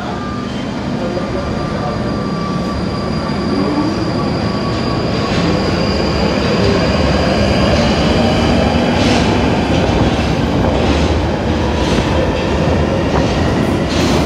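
London Underground Northern line 1995 Tube Stock train pulling out of the platform. Its traction motors whine up in pitch as it picks up speed and it grows steadily louder. In the second half a quick run of wheel clicks sounds over the rail joints as the cars pass.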